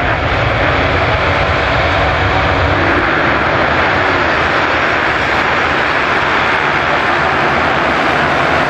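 The massed engines of a large field of motocross bikes, revving hard in a loud, continuous drone at the start line. Partway through, the pack launches and races off across the sand.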